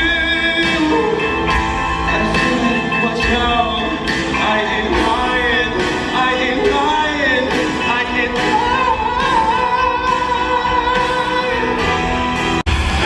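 Live stage-show music with a singing voice over a steady beat of about two beats a second. Near the end the sound drops out for an instant at a cut.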